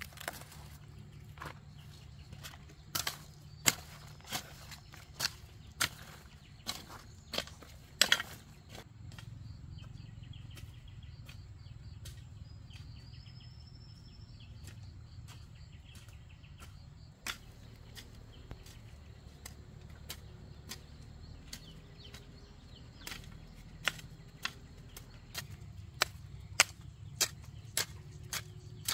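Irregular sharp snaps and knocks of hand garden work: leafy green plants having leaves broken off and a hoe striking the soil, over a steady low hum.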